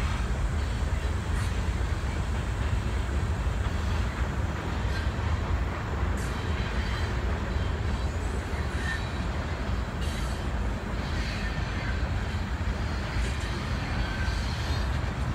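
Ohio Central train running steadily out of sight, heard as a continuous low rumble.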